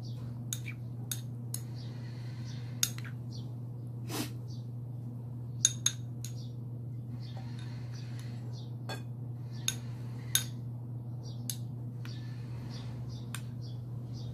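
Metal spoon clinking and scraping against a ceramic bowl and plate as food is scooped: about a dozen sharp, irregular clinks with short scrapes between them, over a steady low hum.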